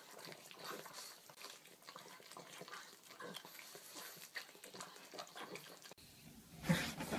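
Pug licking another pug's face: faint, rapid wet licking sounds. Near the end, one short, louder call from a pug.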